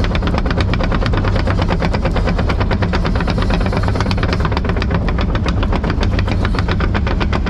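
Kobelco SK140 tracked excavator travelling, its diesel engine running steadily under a fast, even clatter of about eight knocks a second from the moving tracks.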